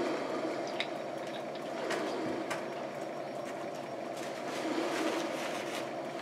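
Hot sauce bottle shaken in short dashes over a plate of food, with faint clicks, then a paper napkin rustling, over a steady low background hum.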